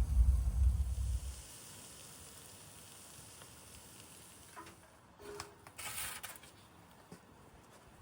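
A low rumble for about the first second and a half, then faint sizzling of turkey drumsticks cooking in a tandoor, fading, with two short rustling bursts about five and six seconds in.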